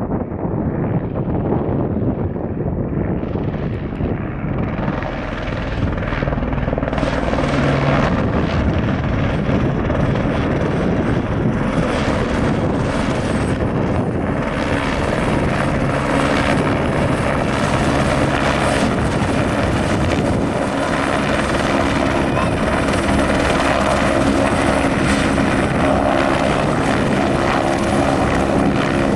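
Airbus Helicopters AS350 B3 (H125) Écureuil single-turbine helicopter close by, its rotor and turbine growing louder and brighter over the first several seconds, then running steady and loud.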